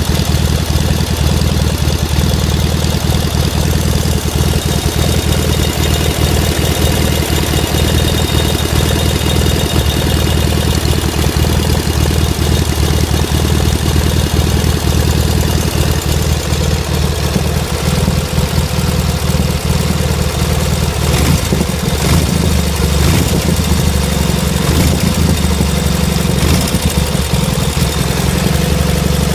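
K-750 motorcycle's 750 cc flat-twin side-valve engine idling steadily, with a few brief clicks in the second half.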